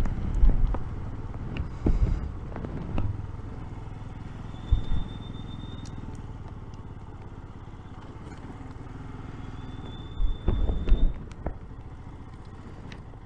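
Royal Enfield Himalayan's single-cylinder engine running steadily at low road speed, picked up by the rider's camera, with a few short louder bursts over the top.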